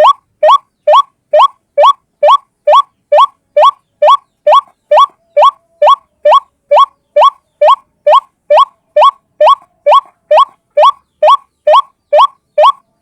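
White-breasted waterhen (ruak-ruak) calling: a fast, steady series of short notes, each sharply rising in pitch, a little over two a second. It is a single-bird lure call of the kind played to draw waterhens in.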